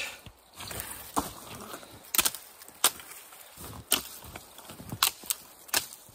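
Dry twigs snapping off a dead branch as it is stripped by hand: a series of sharp cracks, roughly one a second.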